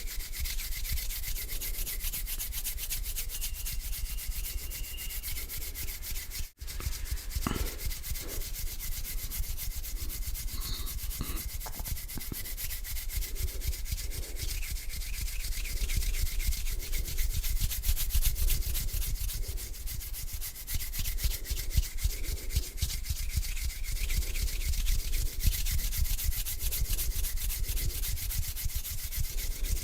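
Slow hand rubbing, palms sliding against each other close to the microphone in a continuous dry swishing. It comes in repeated strokes about a second apart and cuts out for an instant about six seconds in.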